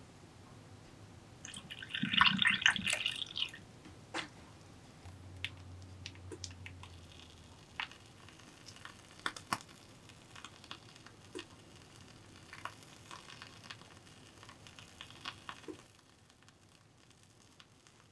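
Canned café au lait poured into a tall glass of milk, a splashy pour of about two seconds near the start. Then faint squelches and small clicks as whipped cream is squeezed from a piping bag onto the drink.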